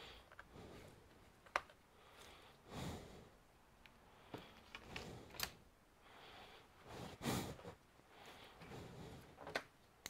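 Faint handling sounds of a laptop being moved and worked on by gloved hands: a few sharp clicks and taps, with softer rubbing knocks in between.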